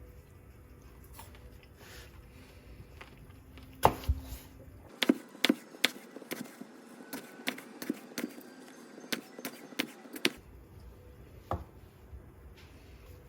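Knife knocking on a wooden cutting board, a few separate knocks and then a run of irregular cuts for about five seconds, as fruit is sliced.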